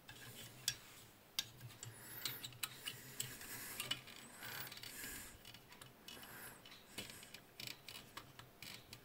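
Faint scattered clicks and light scraping of small metal parts being handled on a valve radio chassis.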